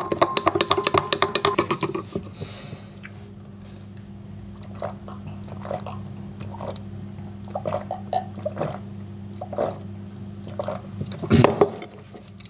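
A metal spoon clinks rapidly against a tall glass as chocolate milk is stirred for about two seconds. Then come a series of gulps and swallows as the glass is drunk down, with one louder short sound near the end, over a steady low hum.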